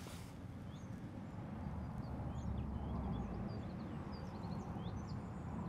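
Small birds chirping and twittering in the background over a low steady rumble of wind, which swells briefly near the middle.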